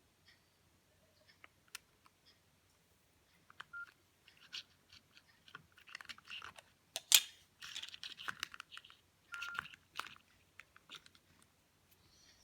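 A Nokia 2610 mobile phone being handled: scattered button clicks and rustling, with one sharp click about seven seconds in and two brief key beeps.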